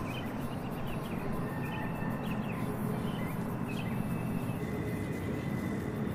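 Outdoor ambience: a steady low rumble, with small bird chirps through the first four seconds.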